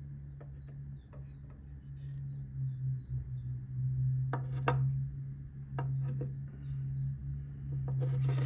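A steady low hum, with short high chirps through the first few seconds and a handful of sharp clicks about halfway through and near the end.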